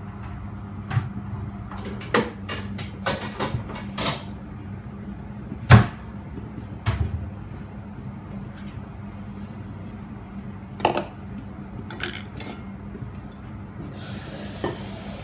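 Kitchen clatter: scattered knocks and clicks of containers and utensils being handled, the loudest knock about six seconds in, over a steady low hum. A soft hiss begins near the end.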